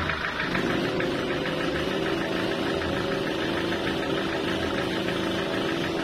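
Sawmill machinery running steadily: the engine driving the log saw, with a fast, even pulsing.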